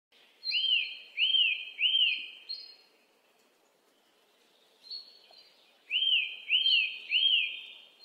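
Bird-like chirps: three quick arched high notes in a row, then after a quiet gap, three more near the end.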